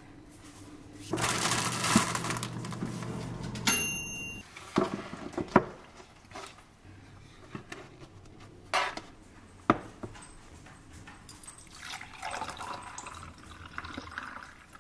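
Kitchen handling sounds: a loud rushing noise for about two and a half seconds, then several sharp knocks of dishes set on a wooden serving tray, then orange juice poured into a glass mug near the end.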